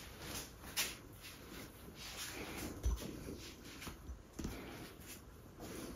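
Faint handling noise: soft rustling with a few light knocks, scattered through a quiet room.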